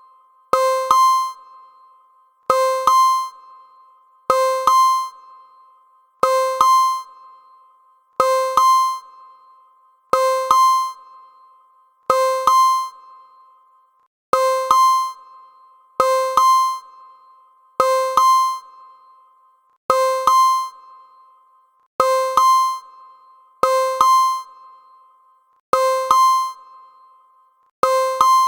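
Electronic access-granted tone: a rising two-note chime, a lower note followed about half a second later by a higher one. It repeats about every two seconds, each chime fading quickly.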